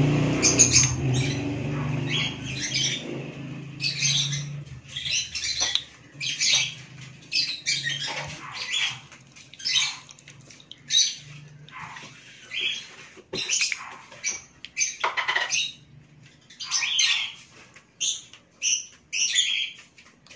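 A bird squawking and chirping over and over in short, irregular calls, over a low hum that fades out in the first few seconds.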